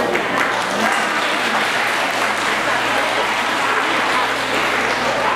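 Audience applauding steadily in a hall as a Thai classical ensemble finishes a piece.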